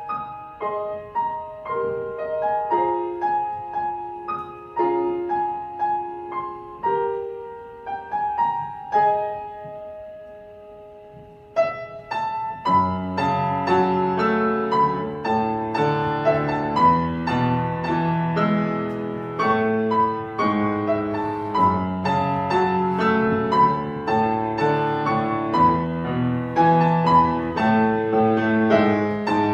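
Solo piano playing a gentle piece: a light melody in the upper register that thins out onto a held, fading note about eleven seconds in, then a fuller passage with bass notes and chords under the melody.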